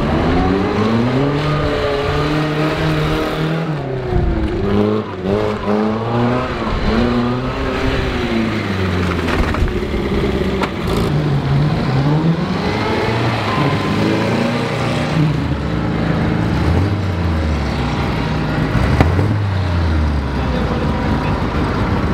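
Pre-war vintage sports car engines revving and accelerating hard, then easing off, with the pitch rising and falling again and again.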